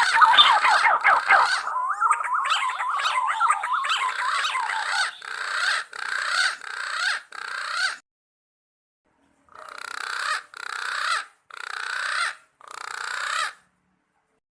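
Punai green pigeons calling with whistled, warbling notes that glide up and down, several overlapping at first. The calls then break into short repeated phrases, each swelling and cut off sharply, with a pause of about a second and a half in the middle, and stop about a second before the end.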